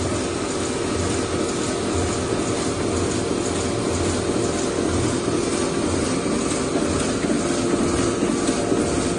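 Shinohara 75 five-colour sheet-fed offset press running: a steady mechanical hum and hiss with a regular beat.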